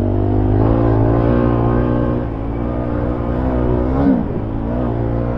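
Honda CRF450RL's single-cylinder engine, fitted with an aftermarket exhaust, running under throttle on a dirt track. Its pitch wavers up and down and drops briefly about four seconds in.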